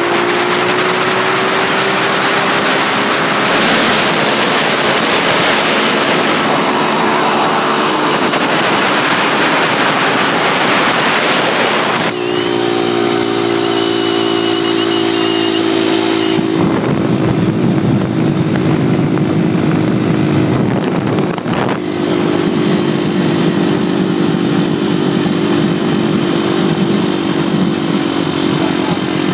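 Single-cylinder pit bike engine running hard at steady high revs while riding, its note breaking sharply about twelve seconds in, then holding steady again. Heavy wind buffeting on the microphone joins in about sixteen seconds in.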